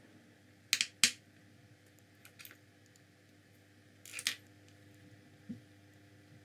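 Short clicks and light knocks of small plastic and metal parts being handled while a 1/18 scale RC car's wheel is taken off: a double click just under a second in, a sharper click right after, faint clicks around two and a half seconds and a cluster just past four seconds.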